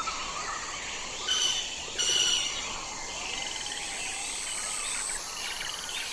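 Birds chirping and calling over a steady background hiss, with two short louder bursts about a second and two seconds in.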